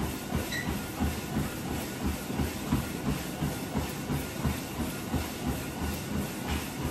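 Feet striking a moving treadmill belt in a steady, even rhythm of about three thuds a second, over the constant whir of the treadmill's motor and belt.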